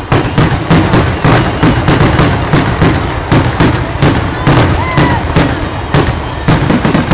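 Fireworks grand finale barrage: aerial shells bursting in rapid succession, about four loud bangs a second over a continuous low rumble.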